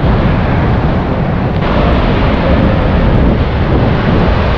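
Wind blowing across the microphone over heavy surf breaking on the shore, a loud steady rush with a deep rumble. The hiss grows brighter about a second and a half in, as a wave breaks.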